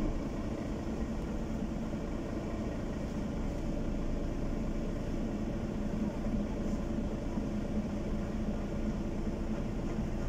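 City bus under way, heard from inside the passenger cabin: a steady low engine and rolling hum.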